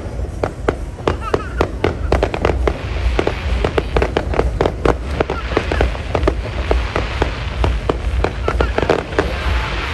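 Fireworks going off continuously: a dense run of sharp bangs and crackles, several a second, over a steady low rumble.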